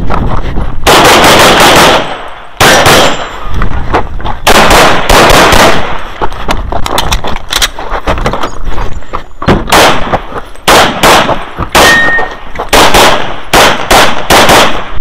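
A semi-automatic pistol firing, heard close and loud, in quick strings of several shots with short pauses between the strings.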